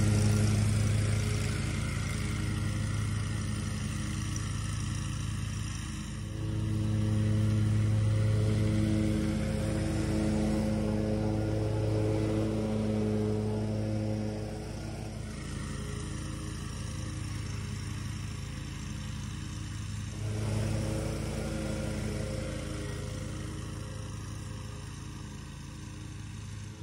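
John Deere Z930M zero-turn mower running at mowing speed, its engine and 60-inch 7-Iron deck cutting grass in a steady drone. It is loudest as it passes close by about halfway through, then fades as it drives away.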